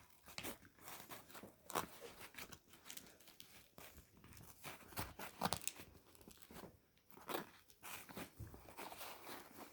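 Faint rustling, scraping and crinkling with scattered small clicks as a folded Velcro bow with a metal kilt pin is pushed and maneuvered through a tight strap on a seatbelt-webbing bag.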